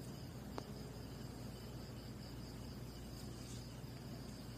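Faint steady background noise: a hiss with a thin high whine and a low hum, with one faint click about half a second in.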